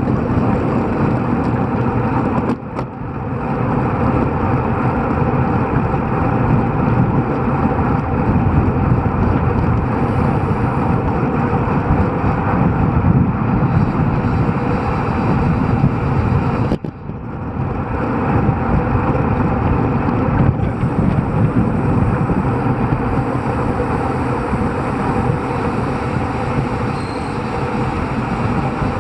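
Steady wind rush and road noise on a bicycle-mounted camera during a group road ride, dropping briefly twice.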